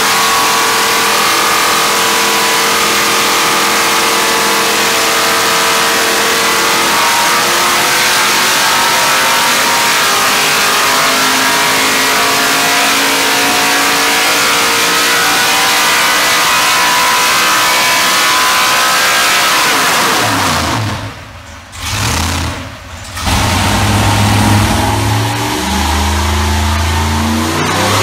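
A 489 cubic inch naturally aspirated oval-port big-block Chevrolet V8 with a solid-roller cam is running hard on an engine dyno through open long-tube headers, held at high rpm. About two-thirds in, the engine note falls away and cuts out briefly twice. It then runs again at much lower rpm, its pitch shifting up and down in steps.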